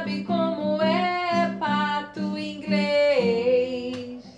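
A woman singing a children's song over a guitar accompaniment, with a long held note near the end.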